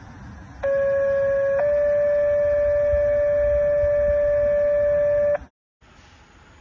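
Two-tone sequential fire dispatch paging tone over radio hiss: one steady tone for about a second, then a slightly higher tone held for nearly four seconds before it cuts off.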